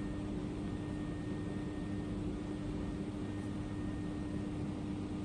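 Steady machine hum: an unchanging drone with one constant low tone over an even noise.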